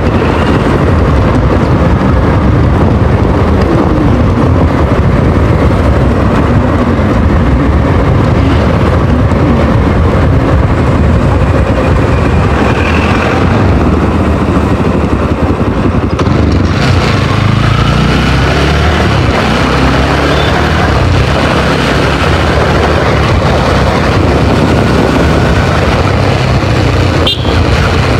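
Motorcycle engine revving hard as the bike is ridden fast, its pitch rising and falling with the throttle, under a steady rush of wind.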